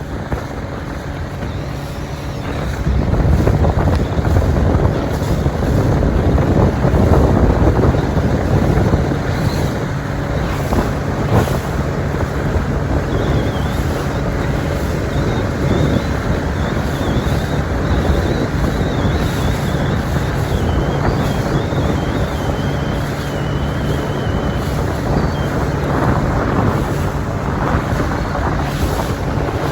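Waterfall's steady rushing roar, with wind on the microphone and a low steady hum from the idling motor of a Boston Whaler boat. The rush grows louder about two and a half seconds in.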